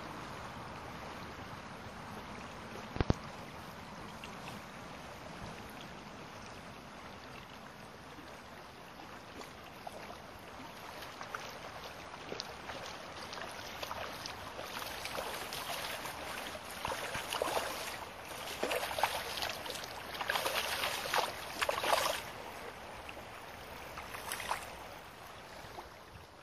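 Shallow river running over stones, a steady rushing. There is a single sharp knock about three seconds in, and from about ten seconds on a growing run of irregular splashes that is loudest toward the end.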